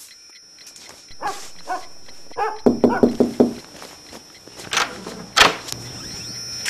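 A dog barking in a quick run of about five barks, then two loud, sharp sounds about half a second apart.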